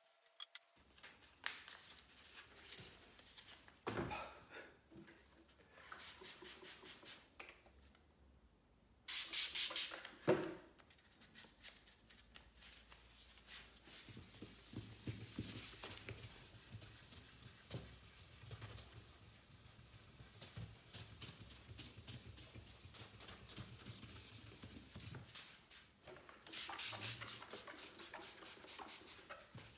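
Fine sandpaper rubbed by hand over car paint in short back-and-forth strokes, with a louder run of quick strokes about a third of the way in and again near the end.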